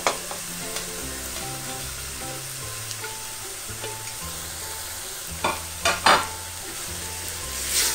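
Chopped onion, garlic and carrot sizzling in oil in a steel pot as diced tomato is scraped in from a plate with a wooden spatula. The spatula knocks sharply against the plate and pot a few times around five and a half to six seconds in, over a quiet background tune.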